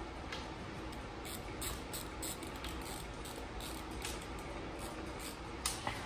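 Hand ratchet clicking in short, irregular runs as an Allen-head bolt is run down to anchor a seat-belt bracket to the truck floor.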